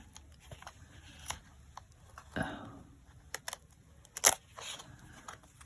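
Light handling of paper and craft materials on a work surface: scattered soft taps and clicks, with one sharper click about four seconds in.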